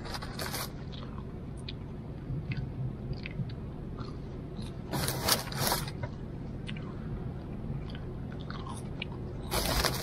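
A person eating French fries close to the microphone: chewing, with three short bursts of noise, about half a second in, around five seconds in and near the end.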